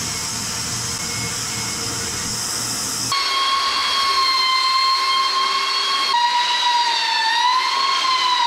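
Bandsaw running with a steady hiss as it cuts a wooden slab; about three seconds in this gives way to a handheld belt sander's high motor whine, its pitch dipping and wavering as it is worked along a board.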